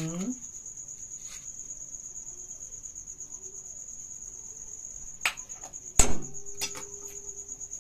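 Crickets chirping steadily throughout. From about five seconds in, a metal spoon knocks against a stainless steel bowl a few times; the loudest knock, about six seconds in, leaves the bowl ringing.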